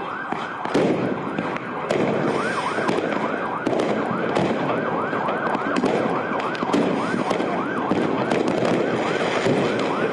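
Emergency-vehicle siren yelping in fast rising-and-falling sweeps, two to three a second, with fireworks cracking and banging repeatedly over a dense street din.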